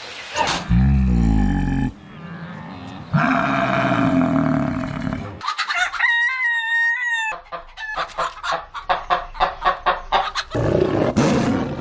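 Chicken sounds in short edited clips: a rooster crows once about six seconds in, followed by a rapid run of hen clucks. Other brief farmyard sounds come before them, with abrupt cuts between clips.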